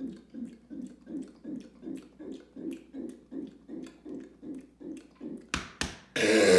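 Soda being gulped in quick, even swallows, about two and a half a second. Then two sharp clicks, and a loud burp begins near the end.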